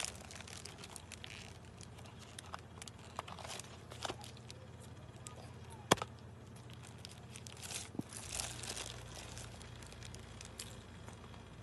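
Food packaging crinkling and rustling in short irregular bursts as it is handled and torn, with one sharp loud click about six seconds in.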